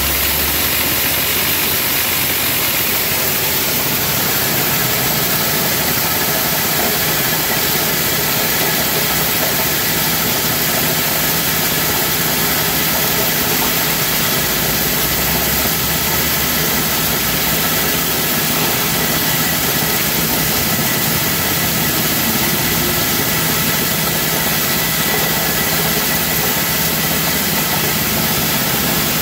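Small petrol engine driving a dry coffee huller with a blower, running steadily under load as hulled green coffee beans pour out. It makes a constant drone with a steady high whine and a dense rushing noise.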